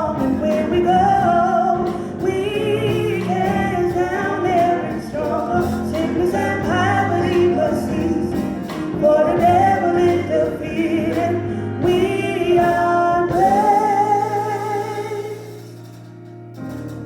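Gospel song with singers over a steady instrumental backing, ending about 13 seconds in on one long held chord that fades out.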